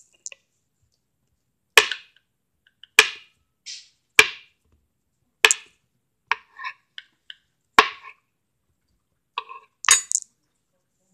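Knife slicing a peeled banana on a plastic cutting board: five sharp knocks, a little over a second apart, as the blade goes through and hits the board, with lighter taps and clicks between them.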